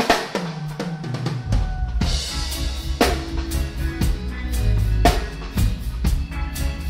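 Live reggae band starting a song, heard from right beside the drum kit, so the drums are loudest: a sharp drum hit opens it, and the bass comes in about a second and a half in under a steady drum beat with cymbals.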